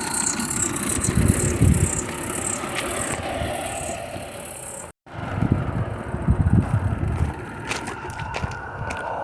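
Gauge one live-steam Roundhouse Lady Anne locomotive running on garden track: steam hissing, with rattling and rumbling from the engine and wheels. The sound cuts out abruptly for a moment about five seconds in.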